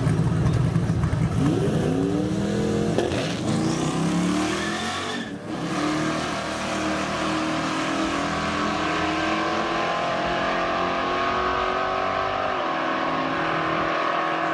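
Drag race launch: the twin-turbo LSX V8 of a Chevrolet Caprice Landau rumbles heavily on the line, then revs up with its engine note climbing over the first few seconds. After that comes a steady engine drone as the cars run down the strip.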